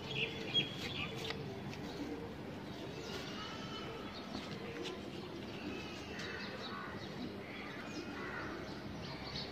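Faint bird calls: scattered short chirps with pigeons cooing, and a short click about half a second in.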